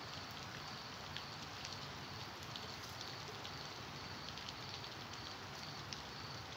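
Steady rain falling, a continuous hiss with scattered sharp drips ticking through it.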